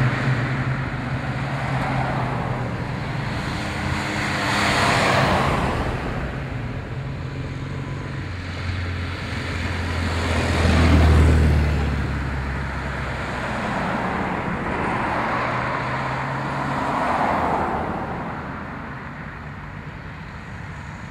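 A string of cars, mostly classic cars, driving past one after another, each engine and tyre noise swelling and fading as it goes by. The loudest passes about eleven seconds in with a deep engine note.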